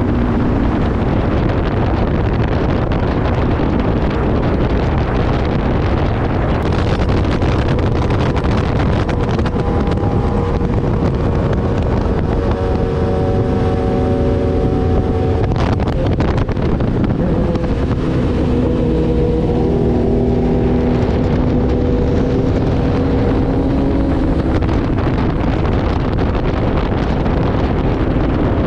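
Motorcycle engine running at road speed under heavy wind rush on the microphone. The engine note holds steady for stretches and shifts pitch a few times around the middle.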